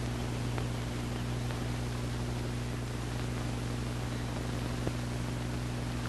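Steady electrical mains hum with a hiss over it, broken only by a few faint clicks.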